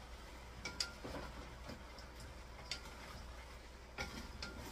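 Wooden spatula knocking and scraping against a metal wok while food is stir-fried, giving a few light, irregular clicks, some with a brief ring from the pan.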